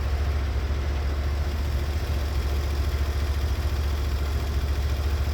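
Norwood HD36v2 portable sawmill's engine idling steadily with a low, evenly pulsing drone, the blade not cutting.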